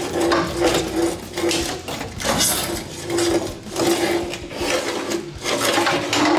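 Old rusted sheet-steel floor pan of a 1967 VW Beetle being wrenched back and forth and torn out by hand, the metal creaking and scraping in repeated rough bursts, about one or two a second.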